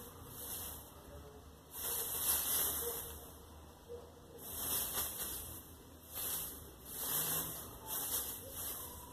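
Shredded newspaper strips rustling and crackling in uneven bursts as a kitten burrows and rolls in the pile, with short quieter gaps between the bursts.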